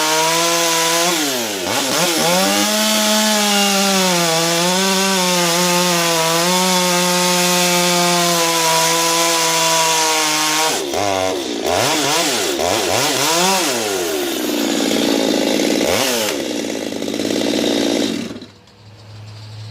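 Ported Stihl MS 250 two-stroke chainsaw with a buckshot muffler, running hard under load while cutting a Douglas fir log, its pitch dipping and recovering. About eleven seconds in it is revved up and down several times in quick succession, and near the end it drops off sharply to a much quieter low hum.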